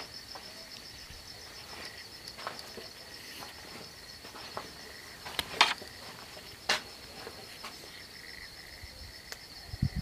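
Crickets chirping in a steady high trill, with a few sharp clicks about halfway through.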